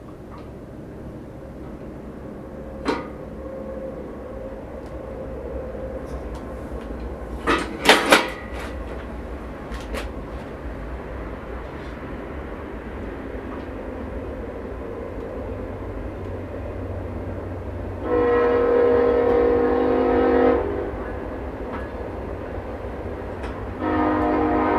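A passing train: a low rumble that builds steadily, with two long blasts of a chorded train horn, one about three-quarters of the way in and another starting near the end. A few sharp knocks sound in the first third.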